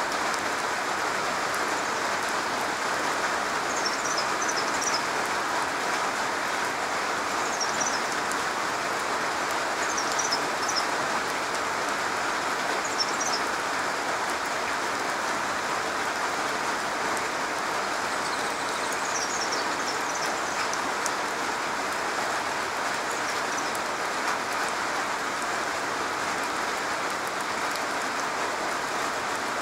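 Steady rain pattering on a garage roof, an even hiss of many drops. A few faint, short high chirps come through now and then.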